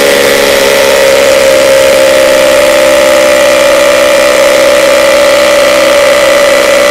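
Cordless brushless rotary hammer drilling into a concrete block with a 10 mm bit, its motor and hammer action running loud and steady at full speed.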